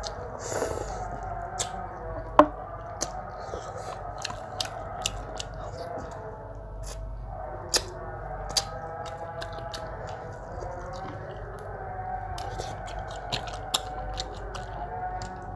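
Eating sounds: chewing, with many sharp clicks of utensils against dishes scattered throughout, the loudest a little over two seconds in.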